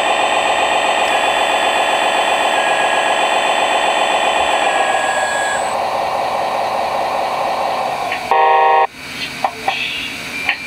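Radio-controlled scale construction machine running with a fast, buzzing mechanical pulse and steady whine, which fades after about five seconds. Near the end comes one short, loud electronic beep, then a few small clicks.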